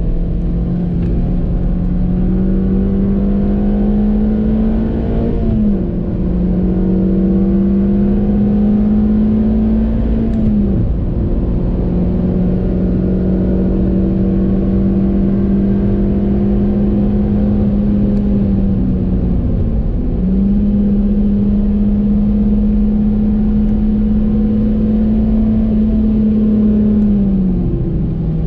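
A 2014 Suzuki Swift Sport's stock 1.6-litre four-cylinder engine running hard at high revs, heard from inside the cabin. Its pitch climbs slowly, then drops sharply four times, then climbs again, over steady road and wind noise.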